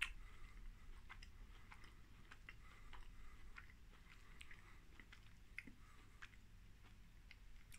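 Faint chewing of a milk chocolate bar with a biscuit cookie layer: soft, scattered mouth clicks and small crunches, with one sharper click right at the start.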